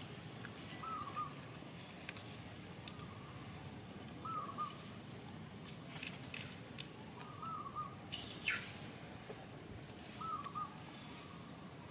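A bird repeating a short call about every three seconds, four times, with a brief hissy rustle about eight seconds in as the loudest sound.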